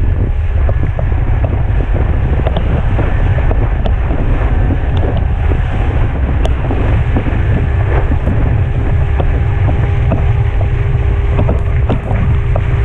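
Heavy wind buffeting on an action camera's microphone over the rush of water, as a wakeboarder is towed at speed behind a boat. A steady hum joins about halfway through.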